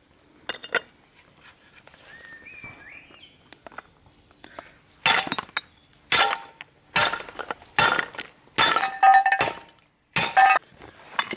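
Ceramic tiles being struck and smashed, a series of sharp clinking, cracking impacts as the tiles break apart. A few light knocks come early, then about six loud strikes follow from about five seconds in.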